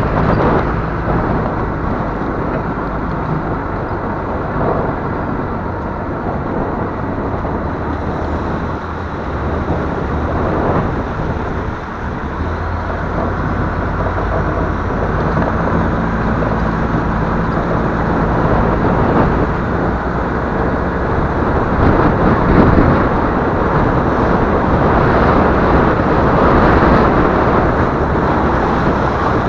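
1991 BMY M925A2 6x6 military truck's diesel engine running as it drives through mud and shallow water, its pitch shifting now and then with throttle and gear. It grows louder about halfway through as the truck pushes into the water.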